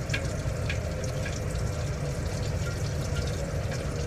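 Hot oil sizzling and bubbling around French fries just lowered in to deep-fry: a steady sizzle with scattered pops and crackles, over a low steady hum.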